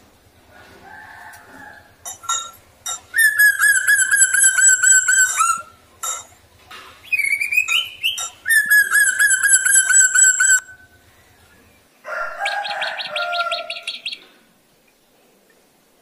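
A caged drongo singing: a few short notes, then two long wavering trilled phrases of about two seconds each with a rising whistle between them, then a quick chattering burst a couple of seconds before the end.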